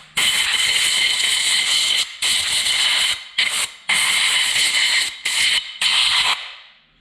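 Compressed-air blow gun blasting in about six sharp-edged bursts of a hiss with a faint whistle, the longest about two seconds: blowing belt dust out of the parts of a Can-Am Outlander's CVT clutch.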